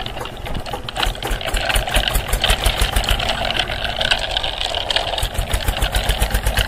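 Toy tractor running with a rapid, even putt-putt engine chug of about eight beats a second.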